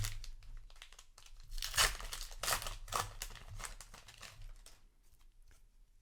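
A trading card booster pack wrapper crinkling and tearing as it is opened, in irregular crackly bursts that thin out about five seconds in.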